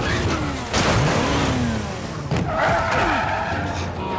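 BMW 735i sedan's straight-six engine revving hard in a car chase, with tyres screeching and a sharp hit about three-quarters of a second in.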